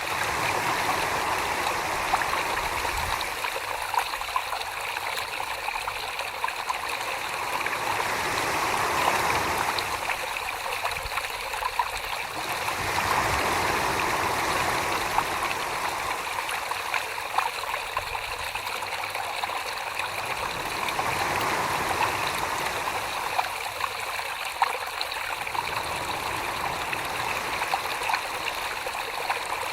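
Wet clay being worked by hand on a spinning potter's wheel: a steady, watery swishing with small wet clicks, swelling and easing every few seconds.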